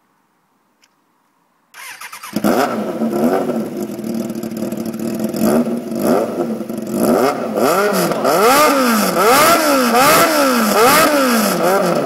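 Suzuki motorcycle engine with its exhaust removed, started about two seconds in. It idles, then is revved in quick repeated blips, the pitch rising and falling with each one.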